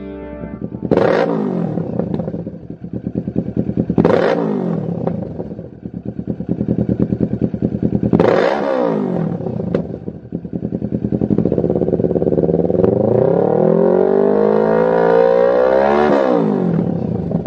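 Kawasaki Z650 parallel-twin engine through a Lextek XP8C carbon-fibre slip-on silencer, revved at a standstill: three quick throttle blips a few seconds apart, each dropping straight back to idle, then a slower, longer climb in revs that peaks near the end and falls away.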